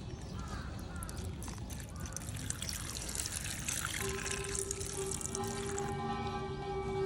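Water trickling and dripping into a suikinkutsu, a Japanese garden water-koto cave, with small ringing drip tones. About four seconds in, a steady held chord of several tones comes in and continues.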